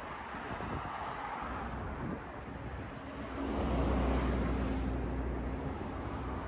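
Steady city traffic noise from the riverside expressway. About three seconds in, a heavy vehicle's engine hum swells nearby, peaks and fades over the next two seconds as it passes.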